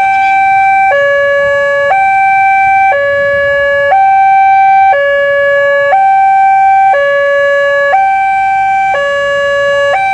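Two-tone electronic warning siren alternating steadily between a higher and a lower tone, each held about a second.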